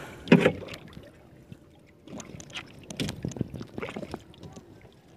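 Irregular knocks and rattles of a wet bamboo fish trap being handled on a small boat. The loudest knock comes about a third of a second in.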